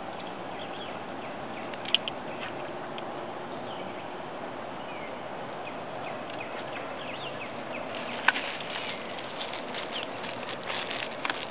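Outdoor pond ambience: a steady hiss with faint, short bird chirps. A few sharp clicks cut through it, the loudest about two seconds in and about eight seconds in, with a quick run of ticks near the end.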